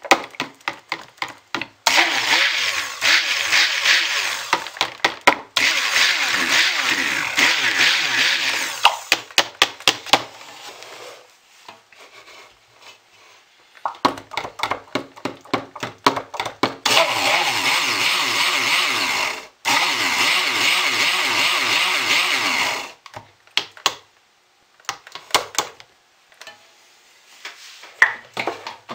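Hamilton Beach stick blender blending thin cold-process soap batter in plastic pitchers to thicken it before pouring. It runs in rapid short pulses and in two longer runs of several seconds each, with a few quiet seconds between them.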